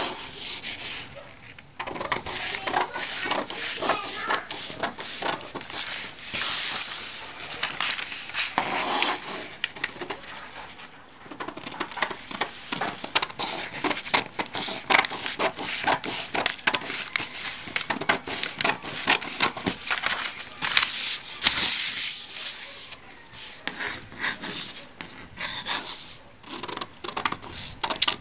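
Scissors cutting through stiff brown pattern paper: a long run of quick snips and crackling paper, with short pauses between cuts.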